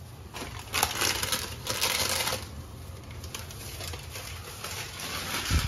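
Plastic bag rustling and crinkling in irregular bursts as food is packed into it, with a low thump near the end.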